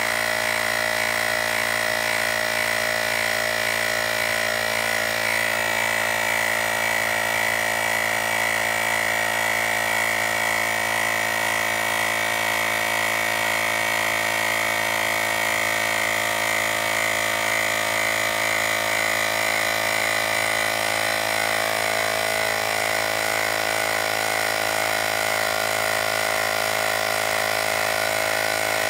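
Battery-powered portable tyre inflator's small electric compressor running steadily, pumping up a mountain bike's front tyre toward its 45 psi preset.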